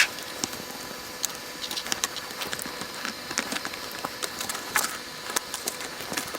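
Scattered sharp clicks and light taps, irregularly spaced, from hand work on a mechanical keyboard as its switches are being removed.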